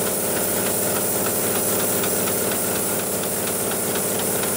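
Hightex computerised pattern sewing machine running, stitching lashing-strap webbing held in its clamp frame: a steady mechanical whir with fast, faint ticking.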